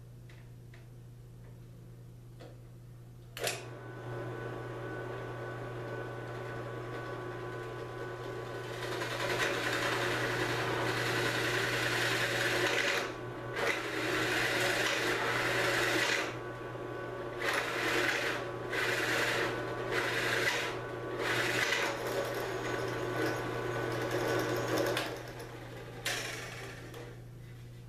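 A benchtop drill press switches on with a click a few seconds in and its motor runs steadily. From about nine seconds in, a 1 3/8-inch Forstner bit cuts into the wooden board, the cutting noise breaking off and starting again several times. The motor runs down near the end.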